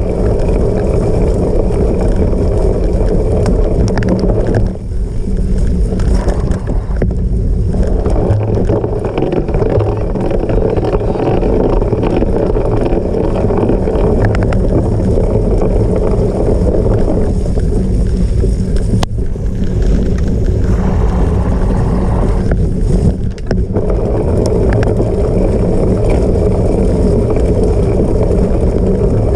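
Steady loud rush of wind on the microphone with the rumble of a cyclocross bike being raced over rough off-road ground, easing briefly a few times.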